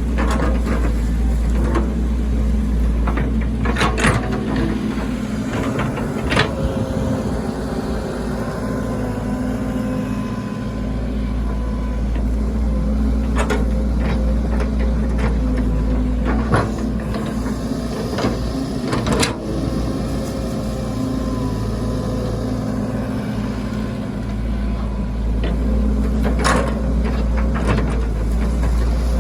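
Hydraulic excavator running steadily while digging. A faint whine comes and goes over the engine drone, with several sharp knocks along the way.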